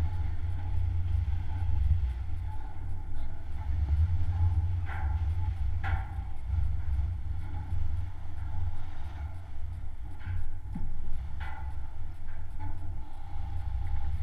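Wind buffeting the microphone: a steady, gusting low rumble, with a few faint short sounds now and then.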